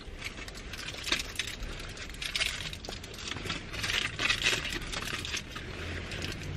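Foil sandwich wrappers crinkling and crackling as they are handled, louder about a second in and again around four seconds in.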